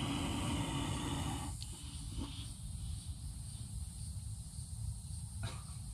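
Monitor lizard hissing in a defensive bluff: a long breathy hiss that stops abruptly about a second and a half in. A few faint clicks follow over a steady low rumble.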